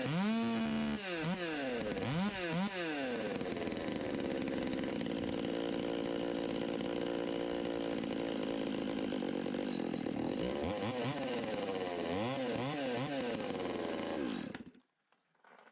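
Stihl MS200T two-stroke chainsaw running on a newly fitted aftermarket carburetor: revved up and down a few times, then idling steadily a bit fast, then revved again before the sound cuts off near the end. The saw now runs smoothly where it had been bogging.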